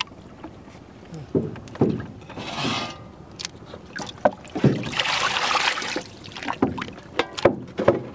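Irregular knocks and taps from a wooden fishing boat, with water splashing twice, the longer splash about five seconds in.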